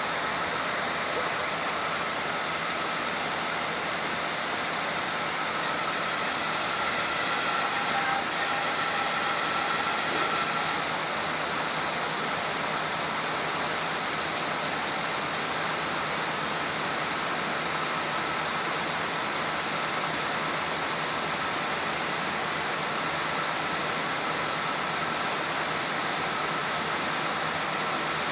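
Garant 4 cigarette-making machine running at top speed: a steady, dense mechanical noise with a faint high whine that holds even throughout.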